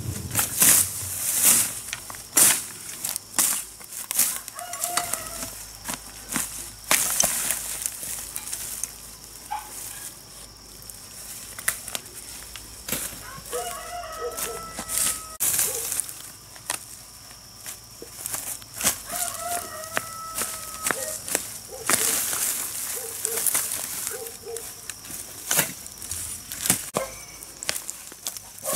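Repeated sharp clicks, snaps and knocks, with a bird calling several times in the background, each call lasting a second or two.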